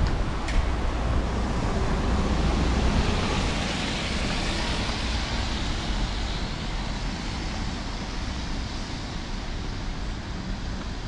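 City street traffic: a vehicle passing, its noise swelling toward the middle and slowly fading, over a steady low rumble.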